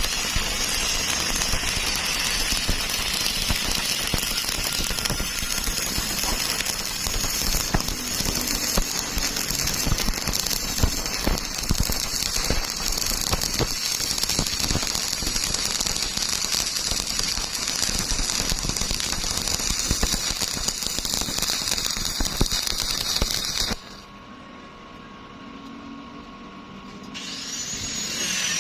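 Stick welding arc crackling and sizzling steadily with dense sharp pops. It cuts off abruptly near the end, leaving a much quieter background.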